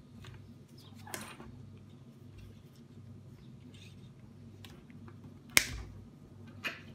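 Handling noises from gloved hands moving a wire coil and multimeter test leads on a tabletop. There is a soft rustle about a second in, then a sharp click about five and a half seconds in and a smaller one about a second later, over a faint steady low hum.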